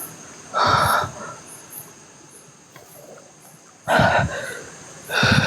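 Crickets chirping steadily, with two short, louder bursts of sound about half a second in and about four seconds in.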